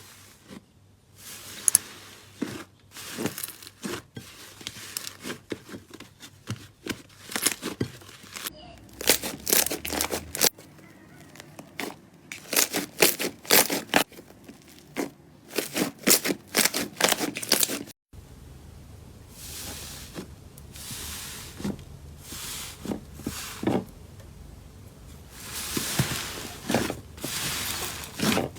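Slime being squeezed, stretched and pulled apart by hand, giving dense runs of sticky pops and crackles. There is a sudden break about two-thirds through, where one clip ends and another starts.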